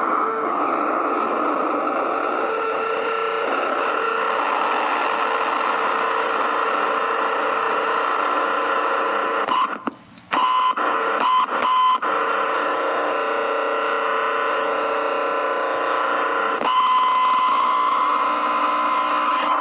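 Distorted noise with steady tones in it from a ProCo RAT distortion pedal and Marshall Guv'nor pedal chained into a Marshall mini-stack amp. The strings are held, so this is the pedals' own noise and not guitar feedback. About halfway through it cuts out and stutters back on, and near the end a new steady high tone comes in.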